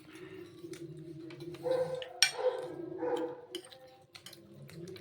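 A dog making a few short whining calls over a steady low hum, with scattered clicks and one sharp click about two seconds in.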